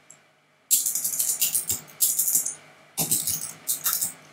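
Typing on a computer keyboard: two quick runs of keystrokes, the first starting about a second in and the second near the end, over a faint steady low hum.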